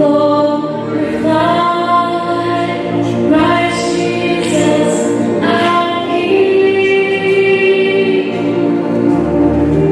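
A choir singing, with held notes.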